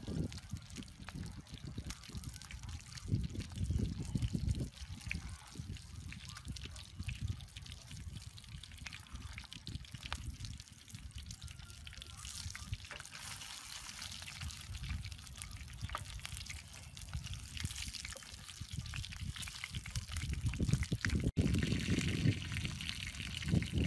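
Two whole fish sizzling and crackling in hot oil in a frying pan on a portable gas stove, with a low rumble underneath that grows louder near the end.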